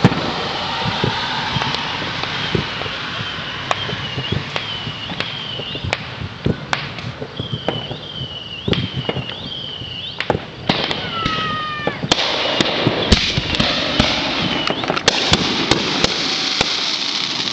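Fireworks going off: many sharp bangs and pops, coming thicker and louder from about twelve seconds in, with a couple of falling whistles just before. A high chirp, rising and then dropping, repeats about twice a second through much of it.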